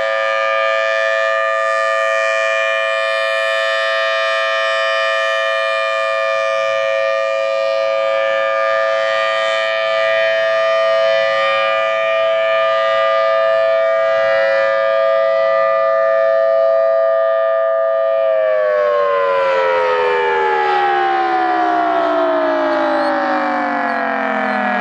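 Federal Signal Thunderbolt 1003 tornado siren sounding a loud steady tone on a test. About 18 seconds in it begins to wind down, its pitch falling steadily.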